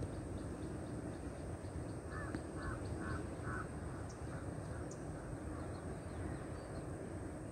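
A bird calling four times in quick succession about two seconds in, over a steady low background rumble.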